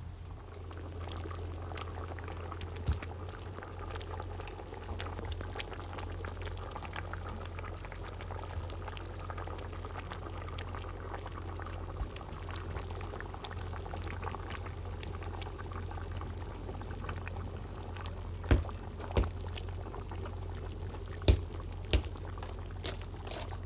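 Stew bubbling and simmering in a cauldron over a wood fire, a steady bubbling with many small pops. A few sharp, louder clicks come in the last few seconds.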